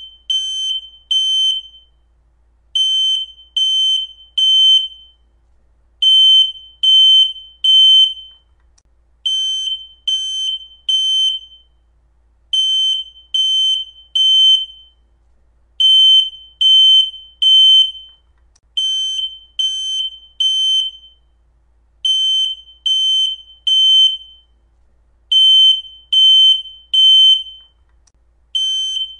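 Smoke alarm going off: loud, high-pitched beeps in groups of three, each group followed by a short pause and repeating about every three seconds. This is the temporal-three pattern a smoke alarm sounds when it detects smoke, not the single low-battery chirp.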